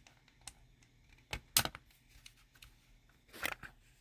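Sharp plastic clicks and snaps from plate-mounted keyboard stabilizers being pressed at their lock tab and lifted free of the plate. There is one small click, then a loud group about a second and a half in, and another group near the end.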